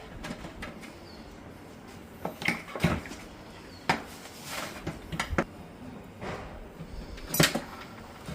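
Irregular clattering and knocks of hard objects being handled, with the loudest strikes about two and a half, four and seven and a half seconds in.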